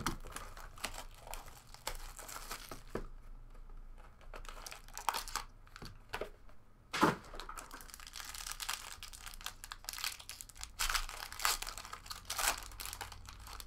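Foil trading-card pack wrapper crinkling and tearing as it is opened, amid handling of the cardboard box: a string of short rustles and clicks, with a sharp knock about seven seconds in.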